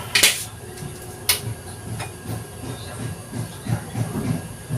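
Dishes and utensils being handled: a sharp clack just after the start and another about a second later, then a run of soft, low knocks.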